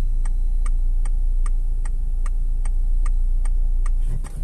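A car's turn-signal indicator ticking steadily, about two and a half ticks a second, over the Peugeot 207's engine running with a low rumble.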